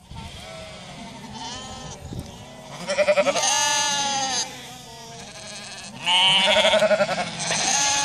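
A flock of Icelandic sheep bleating in chorus, many wavering calls overlapping. The bleating swells loud about three seconds in and again after six seconds, with quieter bleats in between.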